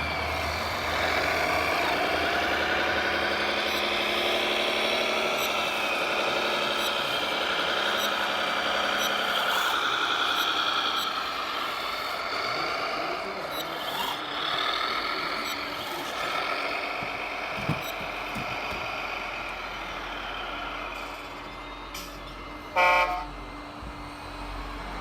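Sound modules of radio-controlled scale Volvo construction models (A40F articulated dump truck and EC480D excavator) playing diesel engine sound, louder in the first half, with one short horn toot near the end.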